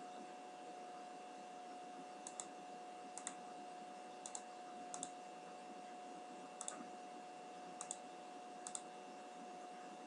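Computer mouse button double-clicked about seven times, each a quick pair of sharp clicks, over a steady faint hum.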